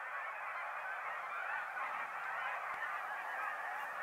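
A huge mixed flock of snow geese and Canada geese calling all at once: a dense, steady din of overlapping honks. The birds have just been flushed up off the field and are calling in flight.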